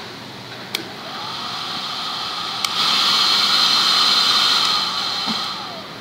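Small handheld hair dryer blowing. A sharp click comes under a second in, and the airflow noise rises. A second click comes at about two and a half seconds, after which it runs noticeably louder, then fades away near the end.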